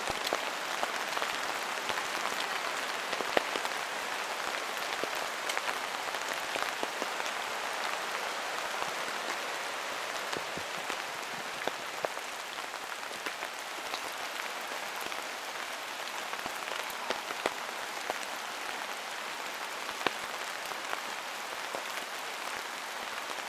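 Steady rain falling in a forest, with many individual drops landing close by as short sharp ticks over an even hiss.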